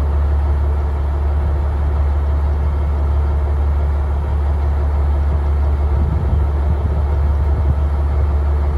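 Boat engine running steadily: a constant low hum with an even rushing noise above it.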